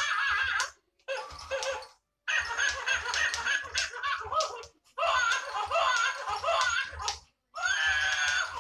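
Animated plush toy monkey playing recorded monkey chattering and laughter through its small speaker, in about five separate bursts that start and stop abruptly with short silent gaps between them.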